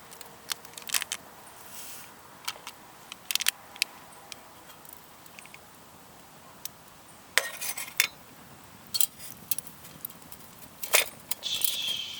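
Camp gear being handled: irregular clicks and clinks of small metal items, with a few short rustling scrapes.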